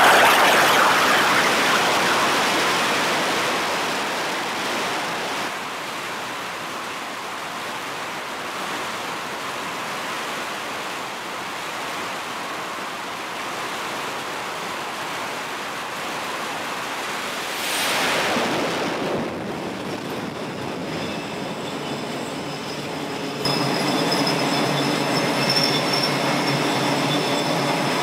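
Jet engines on an aircraft carrier flight deck, from F/A-18 Super Hornet turbofans. A loud rush of engine noise starts suddenly and fades over about six seconds into a steady roar, with a brief swell about two-thirds of the way through. From about 23 seconds in there is a steadier engine whine with several high pitched tones in it.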